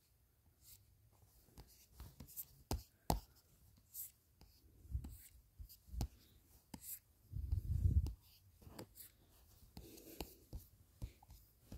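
Drawing strokes and light taps on a tablet touchscreen in a drawing app: soft scratchy strokes and scattered small clicks. A louder low dull bump comes a little past the middle.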